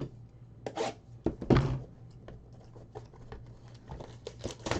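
Trading-card box packaging being torn open and handled: a few short ripping and crinkling strokes, the longest about a second and a half in.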